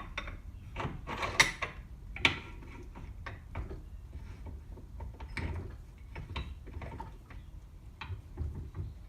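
Irregular knocks, clicks and scrapes of hands handling gear and parts, loudest in the first couple of seconds. There is no steady machine running.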